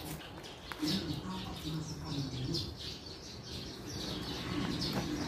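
Birds chirping, with faint voices in the background.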